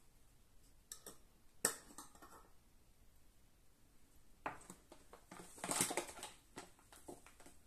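A sharp knock about a second and a half in, then a paper sugar bag being picked up and handled, crinkling and rustling for a couple of seconds from about four and a half seconds in.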